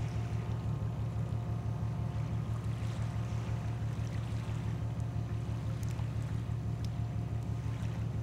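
Steady low drone of a ship's diesel engine running, with a fast, even throb.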